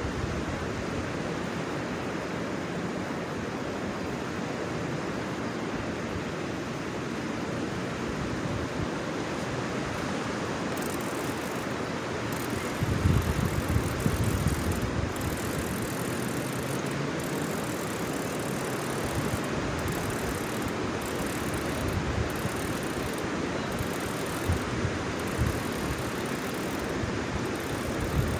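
Steady broad rushing noise, with wind buffeting the microphone in low rumbles about halfway through.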